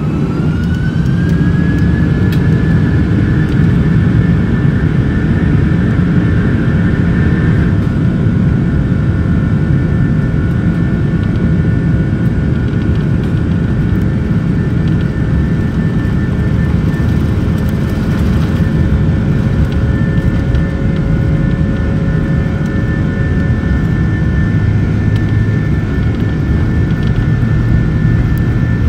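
Airliner's engines spooling up to takeoff thrust, heard from inside the cabin: a whine rises in pitch over the first couple of seconds, then a steady whine over a heavy low rumble as the plane accelerates down the runway.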